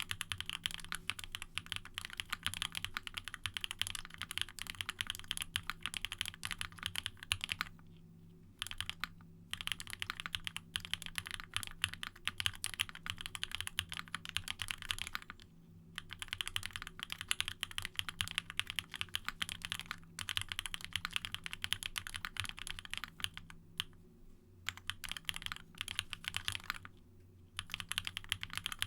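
Steady fast typing on a Monstargear Sangeo60 custom mechanical keyboard with an aluminium plate, lubed Durock POM linear switches and GMK ABS double-shot keycaps. The keystrokes come in long rapid runs, broken a few times by short pauses.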